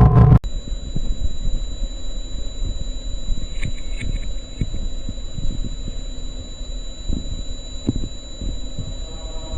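Commercial audio cut off abruptly, replaced by a steady high-pitched whine of two thin tones over low crackling rumble and static, the sound of a hijacked TV broadcast signal.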